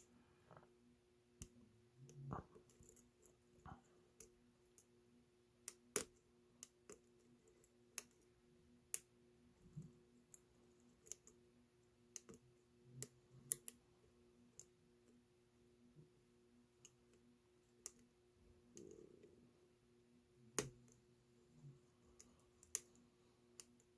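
Faint, irregular clicks of a lock pick working the pin tumblers inside an Ace solid-brass padlock under tension wrench. The pins click as they are lifted and set, but the core does not turn: the lock is not opening.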